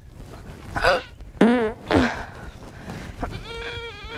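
Several short fart sound effects, a couple with a wobbling pitch in the middle and a longer steady-pitched one near the end.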